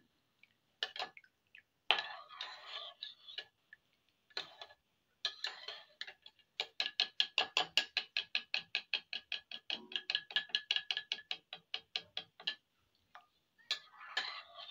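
Spoon stirring a mixture in a ceramic bowl and clinking against its side: scattered clicks and scrapes at first, then a quick, even run of about six clicks a second through the middle.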